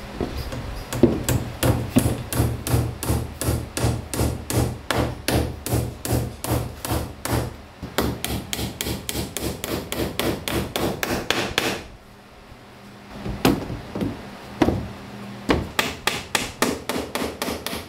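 Hammer striking wood in quick, even blows, about three a second, which stop about twelve seconds in; after a few single blows a second quick run starts near the end.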